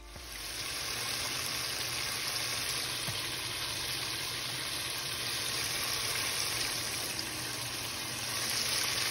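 Chicken frying in hot oil in a Presto electric deep fryer: a steady sizzle that grows slightly louder near the end.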